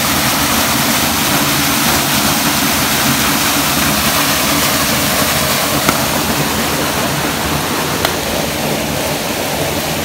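Steady rushing of a small waterfall splashing into a rock pool, easing slightly about eight seconds in, with a couple of faint ticks.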